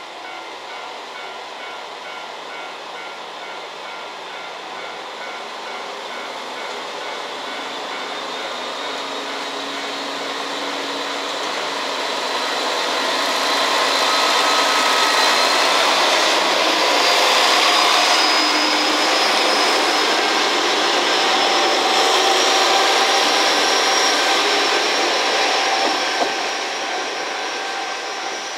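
KiHa 40 series two-car diesel railcar pulling away and passing close by, its diesel engines working under load with a whine that rises in pitch; it grows louder to a long peak in the middle and eases near the end. A level-crossing bell rings in a steady repeating pattern under it.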